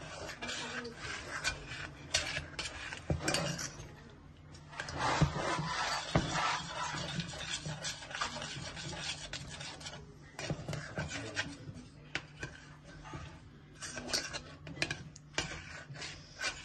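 Spoon stirring and scraping around the inside of a stainless steel saucepan of milk and melting cheese, with many small clicks against the pan and two sharper knocks about five and six seconds in.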